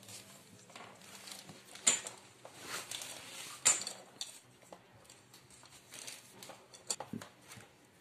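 Light handling sounds as thread-seal (PTFE) tape is wound onto the threaded hot-water outlet of an electric water heater: soft rustling with a few sharp clicks and clinks of metal fittings, the clearest about two seconds in and near four seconds.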